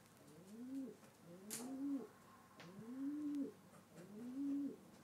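Feral pigeon cooing over and over, four low rising-and-falling coos about one every 1.2 seconds, with a single sharp click about a second and a half in.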